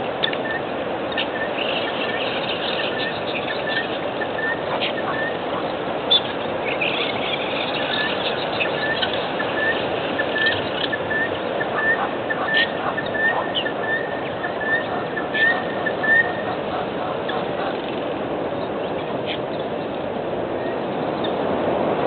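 Birds chirping and calling over a steady hiss, with runs of quick, short repeated notes through the first two-thirds and higher warbling phrases near the start and about seven to nine seconds in.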